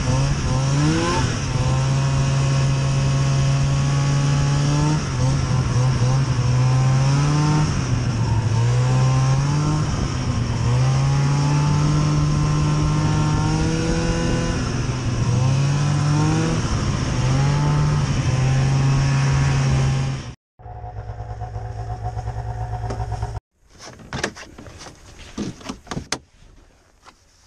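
Ski-Doo Elan snowmobile's small two-stroke engine under way, its revs rising and falling with the throttle. Near the end it breaks off, followed by a few seconds of a steady engine hum, then scattered clicks and rubbing.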